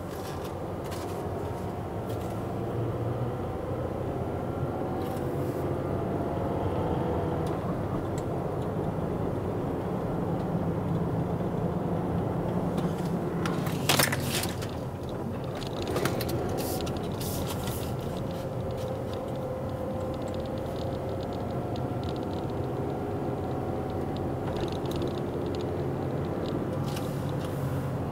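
Car engine and tyre noise heard from inside the cabin while driving, the engine note rising and falling gently with speed. A sharp click about halfway through, and a smaller one two seconds later.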